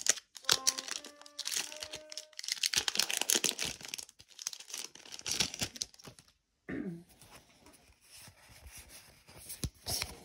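Foil trading-card booster pack being torn open and crinkled by hand, a dense papery crackle that eases off after about six seconds.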